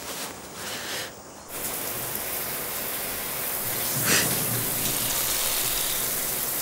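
Shower spray running, a steady hiss of falling water that begins about a second and a half in and cuts off sharply at the end. A brief louder burst comes about four seconds in.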